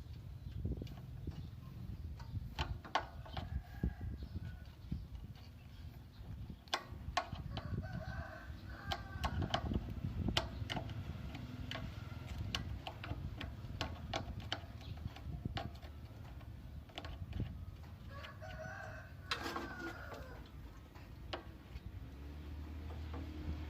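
Chickens clucking, with a rooster crowing a few times, over scattered sharp clicks and knocks. A low, steady hum comes in near the end.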